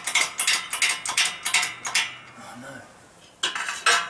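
Steel parts clinking and knocking together on a hydraulic press bed as a crankshaft and socket are lined up: a quick run of metallic taps, then a cluster of louder clanks near the end that ring briefly.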